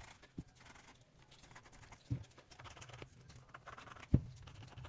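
Sandpaper being rubbed over a sneaker's sole to scrape off old glue: faint scratchy strokes, with three dull knocks, the loudest near the end.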